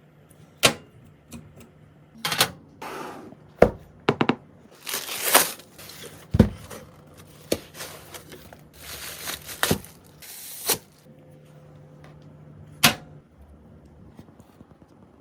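Hands working on PC parts: a string of sharp clicks and knocks as components and fittings are handled and seated, with a few short rustling swishes, quieting near the end.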